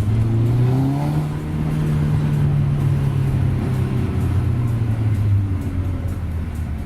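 Volkswagen Golf R's turbocharged four-cylinder engine pulling under power. Its note climbs about a second in, holds, then drops away after about five seconds as the driver eases off.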